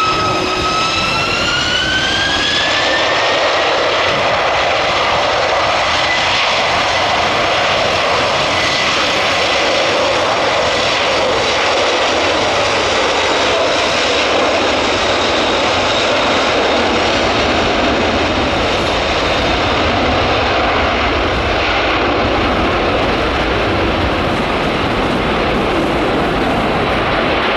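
Jet airliner's engines: a whine that rises in pitch over the first few seconds, then holds steady over a loud, continuous roar.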